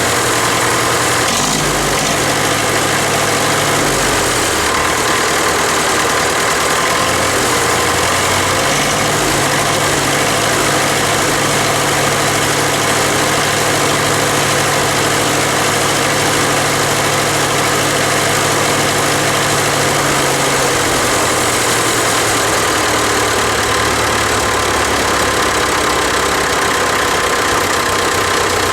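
Farmall diesel tractor engine running at a steady speed that shifts a few times, with sheet metal and emblems vibrating along with it.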